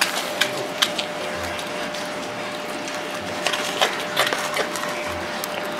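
Serval chewing and tearing at a chunk of raw lamb: irregular wet clicks and crunches, more frequent in the second half, over a steady hum.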